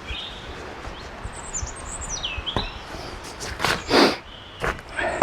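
Wild birds chirping in the woods, then several short, loud bursts of rustling and clatter from camp gear being handled in the second half.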